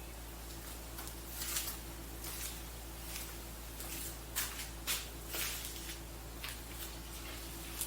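Short scrapes and clicks of tools and metal parts being handled while working on a jet ski pump, a handful of them scattered irregularly over a steady low hum.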